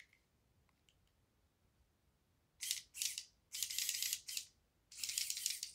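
Hard plastic Mantisx Blackbeard magazine and bolt carrier scraping and rubbing against each other in the hands, in three scraping bursts over the second half, the last about a second long.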